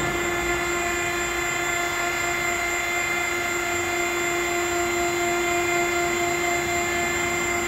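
Pallet inverter's hydraulic power unit running, a steady, even mechanical hum with a fixed high whine.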